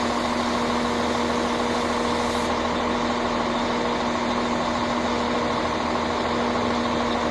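A train's engine running at a steady idle at the station, a constant low hum that holds one pitch throughout.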